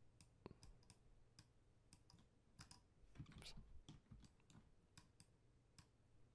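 Faint, irregular clicking of a computer mouse, about a dozen clicks, as vertices are selected and dragged. There is a short stretch of soft low bumping noise about three seconds in.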